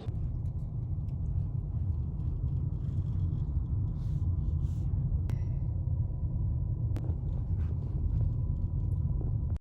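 Wind buffeting the microphone: a steady low rumble that starts abruptly and cuts off suddenly at the end.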